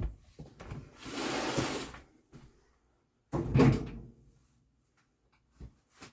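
Laundry being loaded into a tumble dryer: a click of the door, about a second of rustling clothes, then a heavier clunk and thump about three and a half seconds in, with a few small clicks near the end.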